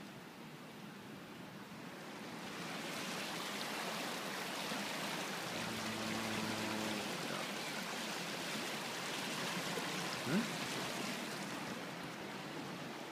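Creek water rushing and splashing over shallow rocky riffles, a steady hiss that swells about two and a half seconds in and fades again near the end. A single short bump stands out about ten seconds in.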